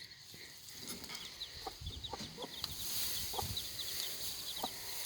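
Mother hen giving a few low, short clucks while her four- to five-day-old chicks keep up a stream of short, high peeps.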